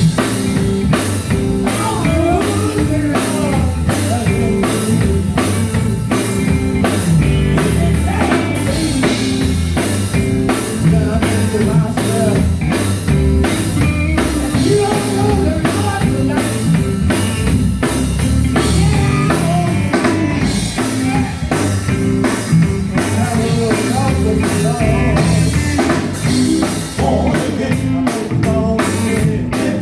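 Live gospel band playing with drum kit, bass and guitar, with singing over a steady beat.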